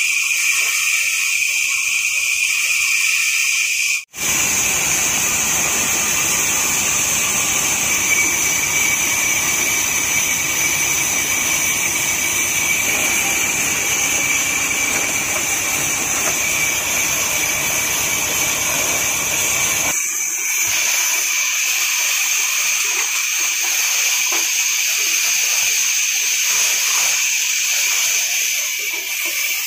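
Band sawmill machinery running: a steady, loud whirring noise with a high, even whine over it. It cuts out for an instant about four seconds in and turns thinner about twenty seconds in.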